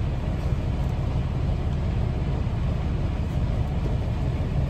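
Tractor-trailer's diesel engine running with a steady low rumble.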